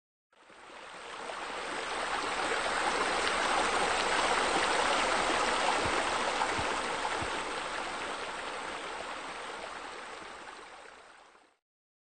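Steady rush of falling water from a waterfall, fading in over the first couple of seconds and fading out near the end.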